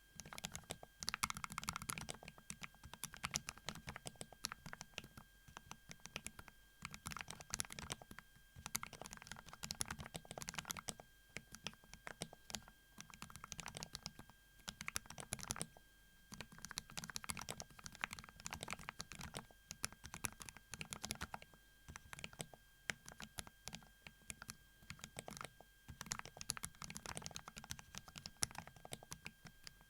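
Typing on a Kapowaz x Keyreative KAP mechanical keyboard with MZ Yezhou Y3 linear switches: quick runs of key presses with brief pauses between them.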